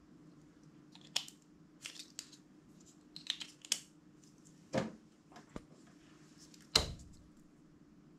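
Hands handling small nail polish bottles and plastic toy figures on a tabletop: a scatter of sharp clicks and taps, then two heavier knocks, about halfway and near the end, the second the loudest. A faint steady hum lies underneath.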